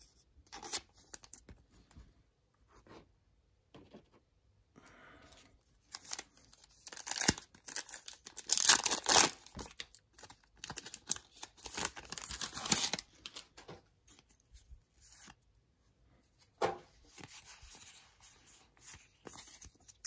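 Foil Pokémon booster pack wrapper being torn open and crinkled, with cards sliding out against the foil. The tearing and crinkling come in irregular bursts, loudest in the middle stretch.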